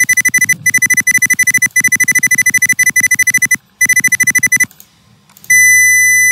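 High-pitched test tone from a simulated LM386 audio amplifier's output, played live through the computer's speaker. It stutters in rapid pulses with a few brief drop-outs and a longer gap, then holds steady and unbroken near the end.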